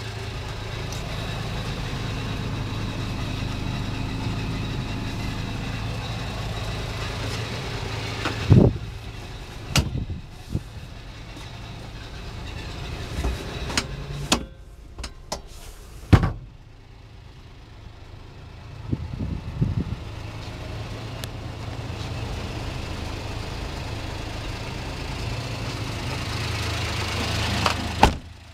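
Honda Acty kei truck's small three-cylinder engine idling steadily, with several sharp knocks over it, the loudest about a third and about halfway through.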